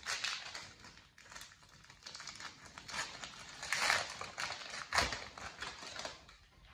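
Crinkling and rustling of a foil Pokémon trading-card pack being torn open and the cards slid out and handled, in irregular spells, with a sharp click about five seconds in.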